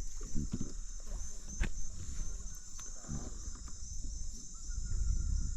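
Steady high-pitched drone of an insect chorus, with low rumbling and a few short knocks underneath.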